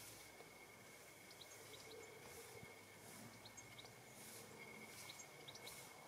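Near silence: faint outdoor background with a steady thin high whine and a few tiny, short high chirps scattered through it.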